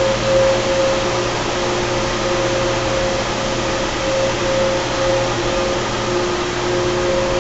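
Carrier 30HX 230-ton chiller's screw compressors running steadily: an even machine rush with a low hum and two steady whining tones over it.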